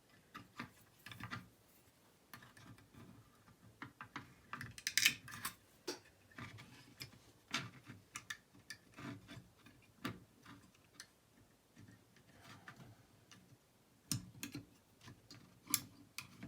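Irregular small metal clicks and taps as the levers of an antique Chubb six-lever detector lock are worked loose and lifted out of the lever stack, with a busier cluster of clicks about five seconds in.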